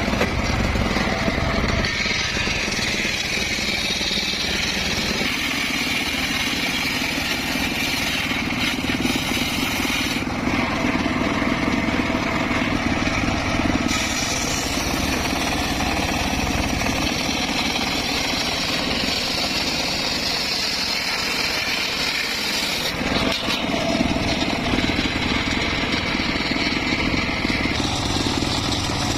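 Circular saw running and cutting teak and mahogany wood, its tone shifting every several seconds as the cut changes.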